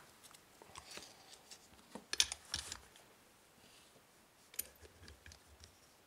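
Light clicks and taps of metal padlocks and a bench vise being handled on the workbench, with a quick cluster of clicks about two seconds in and another sharp click near the five-second mark.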